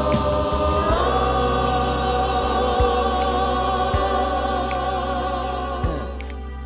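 Gospel choir holding one long chord over a backing band with a few drum hits, dying away near the end.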